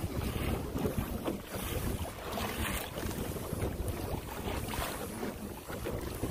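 Wind buffeting the microphone over water lapping and splashing against a kayak's hull as it moves along, gusting unevenly with no engine or voice.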